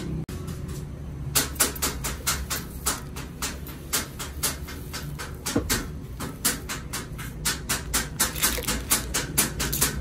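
Rapid, irregular clicking and tapping, several sharp clicks a second, over a steady low hum.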